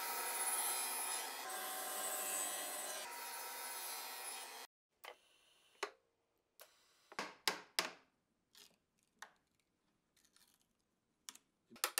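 Table saw running while it cuts slots into a plywood block, stopping abruptly a little under five seconds in. Then a scattering of short, sharp wooden cracks and scrapes from a chisel working the wood between the slots, with a quick run of strokes near the end.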